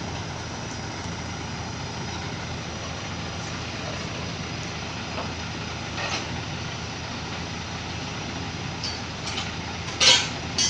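A steady low running noise like a motor or engine, with a few short sharp knocks near the end.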